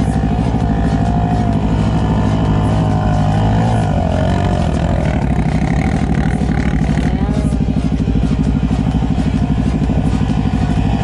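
Quad (ATV) engines: one runs steadily close by, while another quad climbs the sand slope, its engine pitch wavering up and down.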